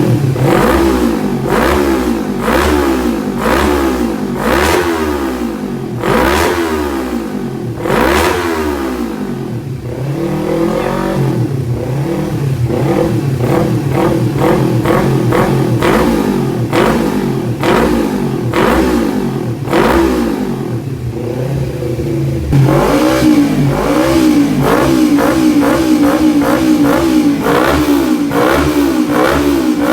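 Kawasaki Ninja 250 FI parallel-twin engine revved through a road-race style exhaust. It is blipped sharply about once a second at first, then held at higher revs with a wavering, fluttering pitch that gets louder about two-thirds of the way in.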